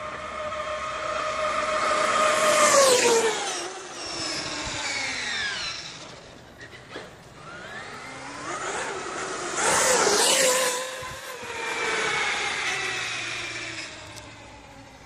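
Traxxas X-Maxx 8S RC monster truck's brushless electric motor whining as it runs past at speed twice, about three seconds in and again around ten seconds; each time the pitch drops as it goes by.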